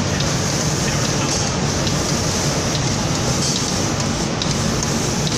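Automatic paint spraying machine running: compressed-air spray guns hissing steadily over a low machine hum.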